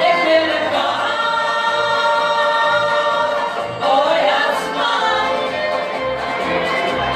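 Group of women singing together into microphones over amplified music with a steady low beat, holding long notes.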